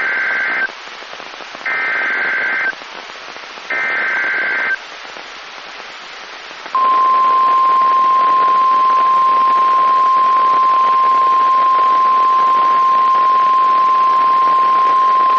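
NOAA Weather Radio alert: three roughly one-second bursts of warbling SAME digital header data, then, after a short gap, a single steady alarm tone held for about nine seconds, over radio hiss. The sequence signals that a new warning message is about to be broadcast.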